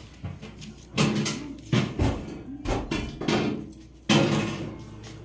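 A series of about six sharp knocks and bangs, each trailing off briefly, with the loudest one about four seconds in.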